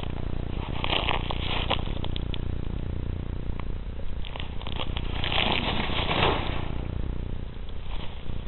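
Dry leaf litter rustling and crackling under something moving through it, in bursts: a short flurry about a second in, a longer, denser spell around the middle, and more near the end, over a steady low rumble.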